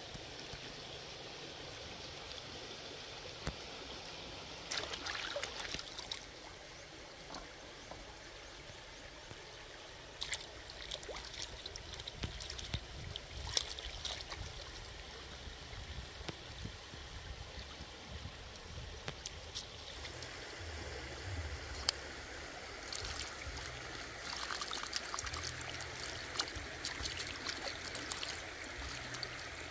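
Shallow stream water trickling steadily, with bouts of splashing and sloshing as vegetables and a wicker basket are washed by hand in the water, the longest bout near the end.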